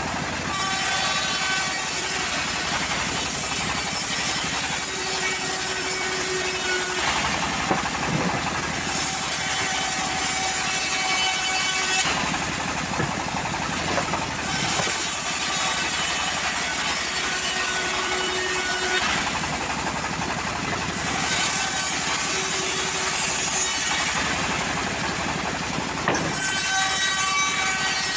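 Homemade bandsaw mill running, its blade ripping lengthwise through teak boards. The noise is steady, with the high hiss of the cut easing for a couple of seconds four times.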